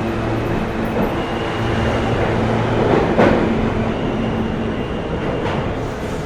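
New York City subway train running along an underground platform: a steady rumble with a humming motor tone and a few sharp clacks of the wheels over the rail joints, the loudest a little after the middle.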